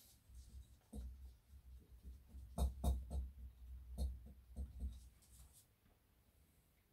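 Faint clicks, taps and light knocks of small metal RC-truck chassis parts, bolts and washers being handled on a table. They come in a scattered run from about a second in, fading out after about five seconds.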